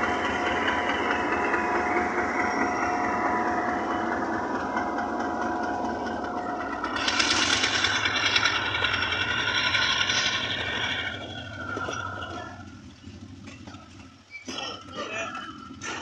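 Diesel-hauled passenger train rolling past: a steady rumble and rushing of locomotive and wheels on rail that grows louder in the middle, then fades to scattered wheel clicks and clatter as the coaches go by.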